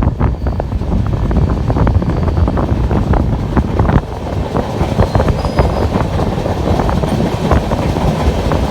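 Moving passenger train running along the track: a steady low rumble with frequent irregular clicks and knocks from the wheels and carriages.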